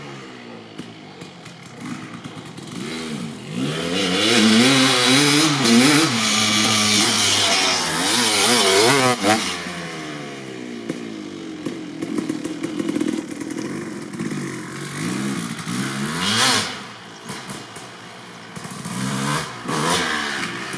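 2003 Kawasaki KX250 two-stroke dirt bike engine, fitted with an FMF Gnarly expansion-chamber pipe and silencer, being ridden hard: the pitch climbs and drops over and over as the throttle is opened and shut through the gears. It is loudest from about four to ten seconds in, falls back to a lower note for a while, then surges twice more near the end.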